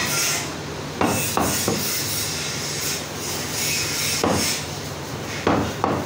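Meat cleaver chopping mutton on a wooden block, about six heavy thuds in uneven groups: three quick ones about a second in, a single one a little past the middle, and two close together near the end.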